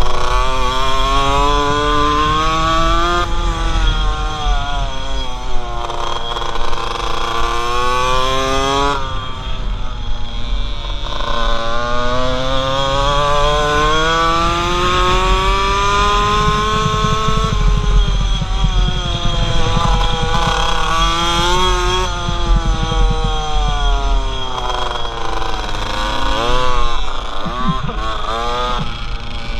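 Small two-stroke engine of a Polini minimoto (pocket bike) at racing speed, its revs climbing along the straights and dropping back into the corners several times over. Near the end the engine note wavers rapidly up and down. Wind rumbles on the helmet camera underneath.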